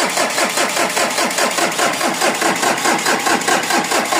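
Mazda BT-50's 3.0 L WE direct-injection turbo-diesel being cranked by its starter in a quick, even beat, turning over without catching: the hard-starting engine will not fire, and the battery is growing weak.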